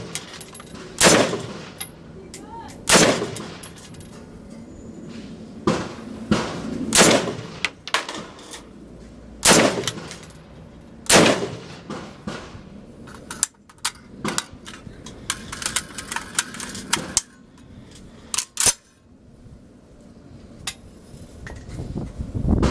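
Ruger Mini-14 semi-automatic .223 rifle fired in slow single shots, a loud crack every one to three seconds over the first half, each with a short echo. Fainter shots follow in the second half.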